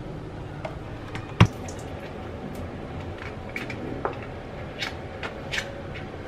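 Light metal clicks and taps as a tin of pork luncheon meat is handled and opened, over a steady low background hum, with one sharp knock about a second and a half in.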